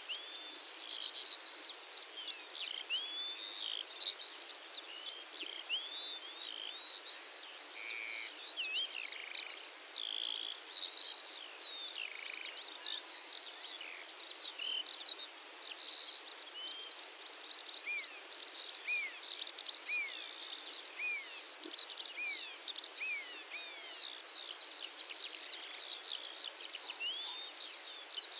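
Dawn chorus of songbirds: many overlapping chirps, trills and quick whistled glides, continuous, over a steady background hiss.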